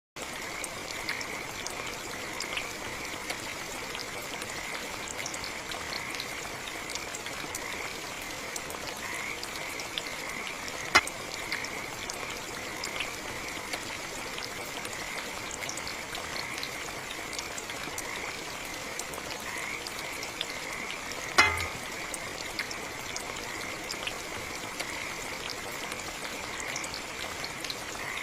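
A chorus of frogs calling steadily in a pulsing, croaking band over an even hiss like light rain. Two sharp clicks sound, one about a third of the way in and one about three quarters through.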